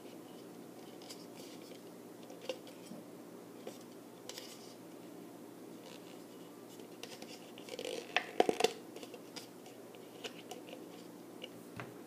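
Thumbtack being pushed through a thin plastic cup, with small scratching clicks from the plastic. About eight seconds in comes a short burst of louder crackling clicks.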